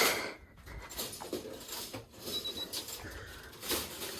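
Rabbits scrabbling and being handled in their cages: irregular rustling and light knocks, the loudest right at the start.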